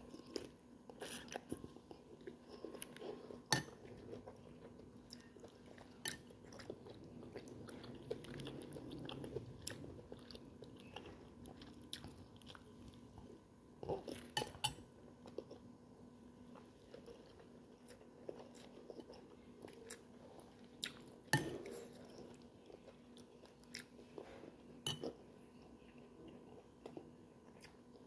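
A person chewing mouthfuls of meatball soup and vegetables close to the microphone, with scattered sharp clinks of a metal spoon against the plate, the loudest about 3.5, 14 and 21 seconds in.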